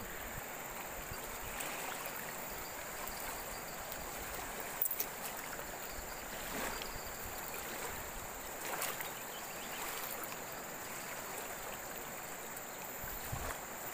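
Shallow river current rushing steadily, with a thin steady high tone above it and a few brief faint clicks.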